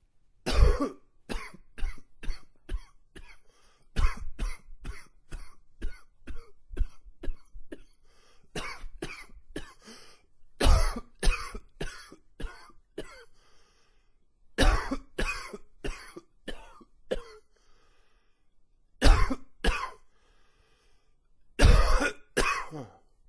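A man coughing in about seven fits, each a quick run of several harsh coughs, with short pauses between the fits.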